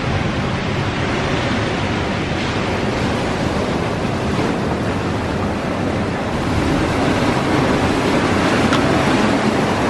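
Ocean surf breaking and washing over a cobble beach: a steady rush that grows a little louder in the second half.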